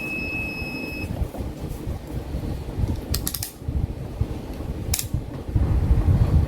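Multimeter continuity alarm sounding one steady high beep for about a second, showing an unbroken connection through the freshly soldered battery cable terminal. A cluster of sharp clicks follows a couple of seconds later, and another single click, with a low rumble coming up near the end.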